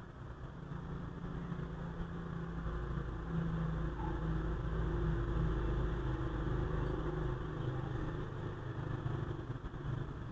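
A motor vehicle's engine running with a low, steady hum. It grows louder over the first few seconds and then eases off near the end, as a vehicle passing by would.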